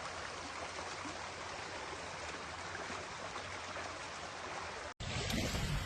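Steady rush of flowing floodwater. About five seconds in it cuts off abruptly and resumes louder, with more low rumble.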